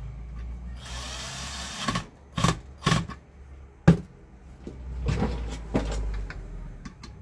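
Screwdriver work fastening a wire terminal to an electric pressure cooker's heating element: a second of scraping about a second in, then three sharp metallic clicks, the last the loudest, followed by more rustling of tool and parts.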